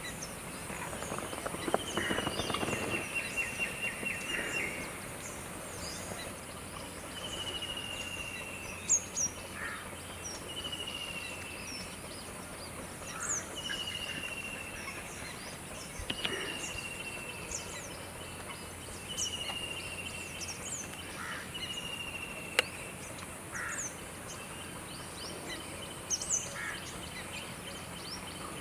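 Birds calling in the open: one bird gives a slightly falling whistle, repeated about every three seconds, the first one longer, while other birds make many short, high chirps throughout.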